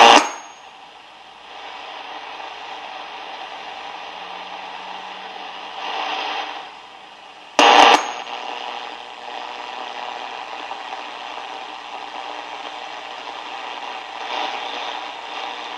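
Hallicrafters SX-100 shortwave receiver's speaker hissing with band noise and static as it is listened across, with signals swelling in and out. There is a short loud crackle at the very start and another at about eight seconds.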